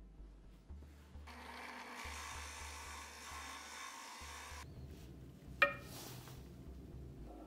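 Drill press driving a small hole saw through a plywood block: a steady cutting noise for about three seconds, then a single sharp metallic clink with a short ring near the end.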